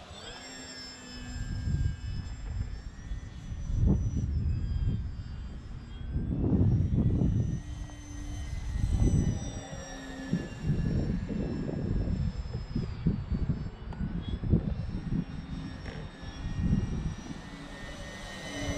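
Multiplex AcroMaster Pro RC plane's electric motor and propeller whining as it flies past, the whine's pitch drifting up and down with the throttle. Irregular gusts of low rumble, louder than the whine, come from wind on the microphone.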